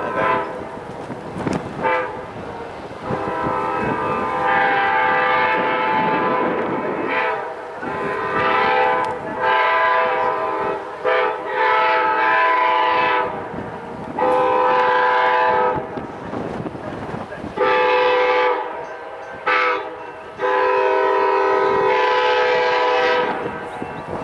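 Amtrak GE P40DC diesel locomotive sounding its multi-note air horn in a series of long and short blasts as the train approaches. Near the end the blasts fall into the long-long-short-long grade crossing signal. Under the horn runs the rumble of the oncoming train.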